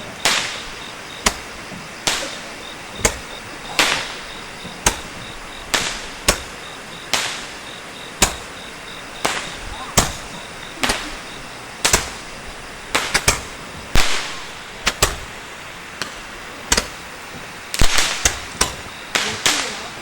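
Fireworks exploding overhead: sharp bangs about once a second, each with a short echoing tail, and a quick run of several bangs near the end.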